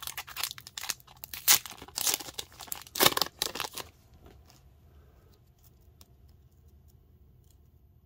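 Wrapper of an Upper Deck hockey card retail pack torn open by hand: a run of crinkly tearing and rustling over about the first four seconds, then only a few faint ticks as the cards are handled.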